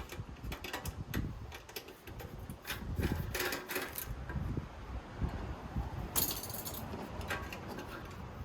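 Small metallic clicks and clinks of parts being handled during a teardown of a NAS enclosure, with a brief scraping rasp about six seconds in. Wind rumbles on the microphone throughout.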